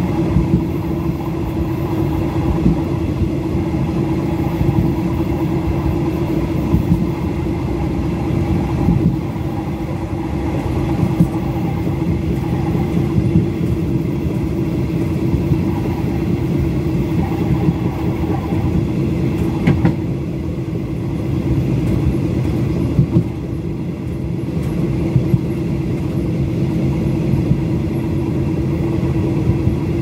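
Passenger train running on the rails: a steady wheel-and-track rumble with a constant hum, broken by occasional short clicks.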